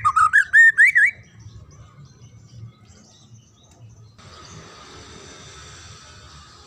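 White-rumped shama (murai batu) singing a fast run of loud, looping whistled notes, rising and falling, that stops about a second in, followed by a few faint soft notes. About four seconds in, a faint steady hiss sets in.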